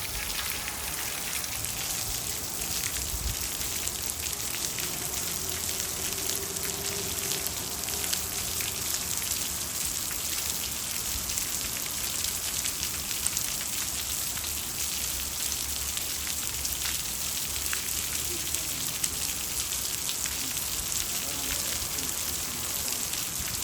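Water running from plumbing outlets, a steady spraying, pattering hiss.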